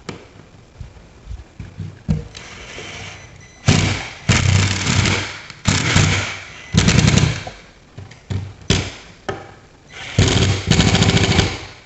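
Cordless impact driver driving screws into a plastic in-wall box plate, hammering in about five short rattling bursts after a few quieter seconds. The impacting shows each screw has seated and is tightening.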